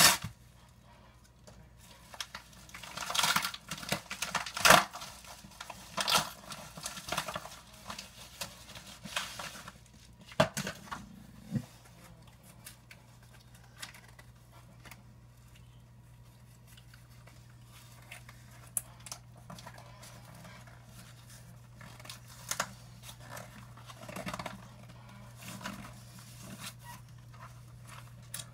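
A mail package being opened by hand: irregular tearing, cutting and crinkling of packaging. The rustling is busiest in the first ten seconds or so, then thins to occasional small rustles and clicks.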